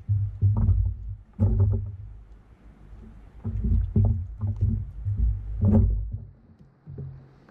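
Kayak being paddled: irregular paddle strokes and knocks in the water, with a low rumble, easing off for a stretch in the middle.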